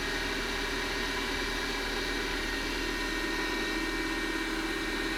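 Milling machine motor and spindle running steadily without cutting, a constant hum with a few faint steady tones.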